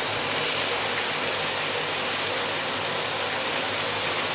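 Chopped vegetables frying in olive oil in a pot, a steady sizzle.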